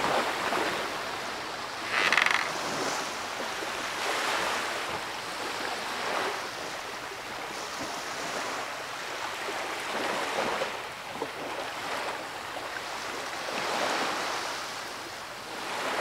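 Sea surf washing onto a beach, waves rushing in and falling back every couple of seconds, one slightly louder about two seconds in.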